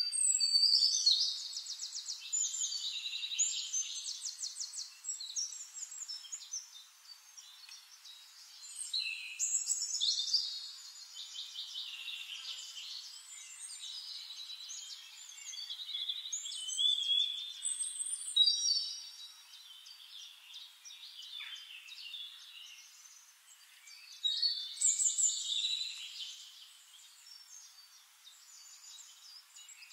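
Small birds singing, with fast high trills and short chirps coming in bursts every few seconds.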